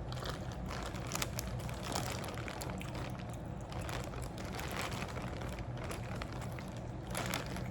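Close-up eating sounds of a seafood boil: chewing and mouth smacks, with scattered small clicks and crackles over a steady low hum.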